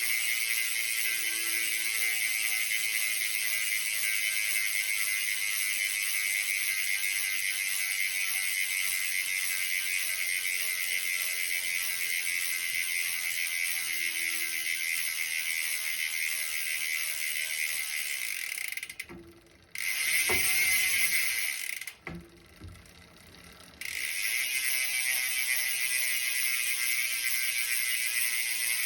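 Bontrager Rapid Drive 54 rear hub freewheeling, its pawls ratcheting in a fast steady buzz as the wheel coasts. The buzz cuts out twice, for a second or two each time, about two-thirds of the way through, with a louder stretch between the two gaps, then resumes.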